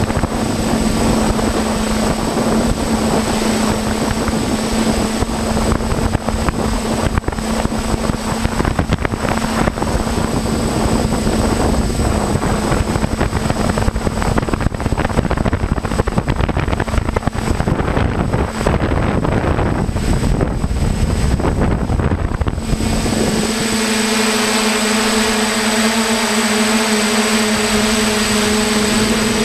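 Hexacopter drone's motors and propellers humming at a steady pitch, picked up by cameras mounted on the drone, with wind buffeting the microphones. About 23 seconds in the wind rush falls away and the propeller hum turns cleaner, with several steady tones.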